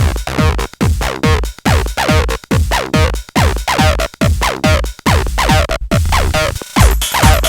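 Live hardware techno: a steady kick-drum beat about twice a second under short, falling-pitch synth notes. The track drops out briefly near the end, holds a low bass note, then the beat comes back fuller and brighter.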